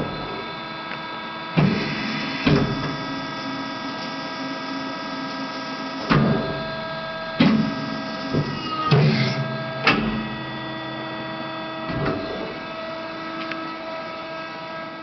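LVD PPCB 150-ton CNC hydraulic press brake running: a steady machine hum with several fixed tones, broken by about eight sharp clunks and knocks spread through.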